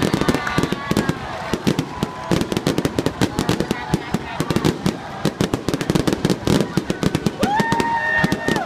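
Fireworks crackling: a dense, irregular run of sharp pops and crackles with no pause.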